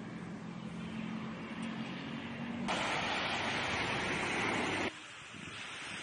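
Outdoor ambient noise with a faint steady hum of distant traffic. Almost three seconds in it jumps suddenly to a louder, even rushing noise, then about two seconds later drops abruptly back to a quieter hiss.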